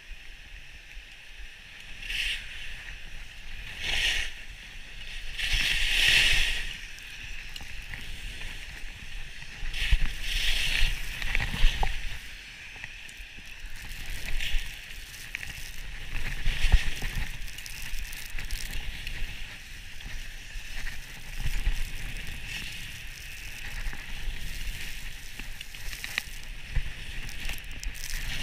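Skis hissing and scraping over packed snow while skiing downhill, swelling and fading every two seconds or so, with wind buffeting the action camera's microphone as a low rumble underneath.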